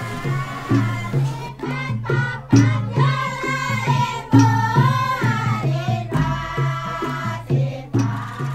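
Background music: a melody that bends up and down over a pulsing bass line.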